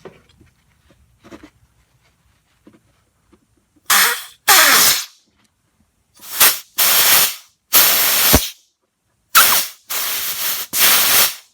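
Rubber-tipped compressed-air blow gun giving about eight short, loud blasts of hiss into the brake line port of an MGC wheel cylinder, beginning about four seconds in. The air is meant to push out a seized piston, which is not moving.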